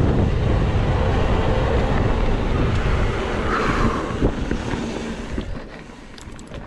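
Wind rushing over the microphone and tyres rolling on a dirt trail as a mountain bike rides fast, with light rattles. The noise dies down about five and a half seconds in as the bike slows.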